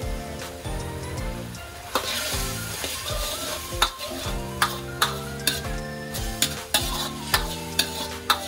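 Stir-frying in a wok: from about two seconds in, a metal ladle scrapes and knocks against the wok about once or twice a second while eggplant and pork in miso sauce sizzle. Background music plays throughout.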